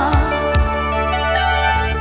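Instrumental break of a live band with no singing: keyboard chords held over a steady beat from electronic drum pads, low kick thumps and hi-hat ticks.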